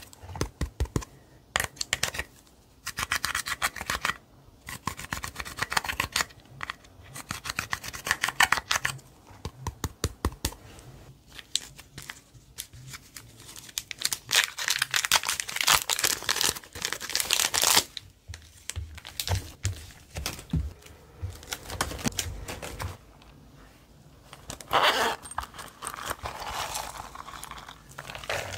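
Slime being kneaded and stretched by hand, giving sticky crackling and popping in irregular bursts.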